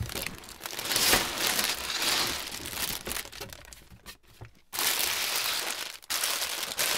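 Clear plastic bags full of LEGO bricks crinkling as they are handled and pulled out of a cardboard box. The crinkling comes in stretches, with a short pause about four seconds in and a brief break near six seconds.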